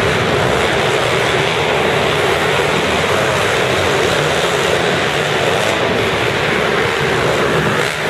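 Several mini motocross bikes' small four-stroke engines running and revving together on a dirt track, a loud, steady engine din with the pitch of single bikes rising and falling within it.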